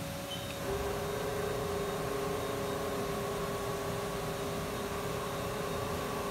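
Haas VF-4 vertical machining center running its spindle warm-up program: a steady whine starts about a second in and holds level as the spindle runs at constant speed.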